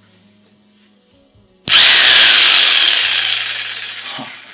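Bosch PST 650 jigsaw's 500 W motor switched on suddenly about two seconds in, running free with the blade stroking in the air, not cutting. It starts at full loudness and then dies away over about two seconds as it winds down.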